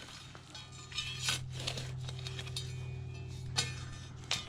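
Digging tool striking and scraping broken glass in the soil of a bottle dump, giving about six sharp, ringing clinks spread over a few seconds.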